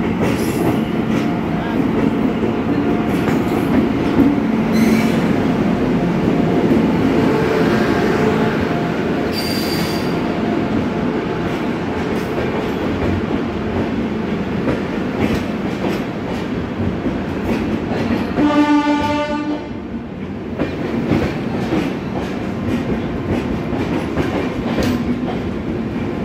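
Indian Railways WAP-7 electric locomotive passing, followed by a long rake of passenger coaches rolling by with a steady rumble and the clatter of wheels over the rails. A horn blast of about a second sounds around two-thirds of the way through.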